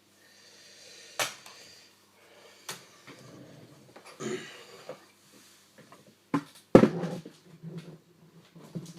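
Handling noise: a few sharp knocks and clatters of hard objects being moved about, the loudest about seven seconds in, with rustling in between.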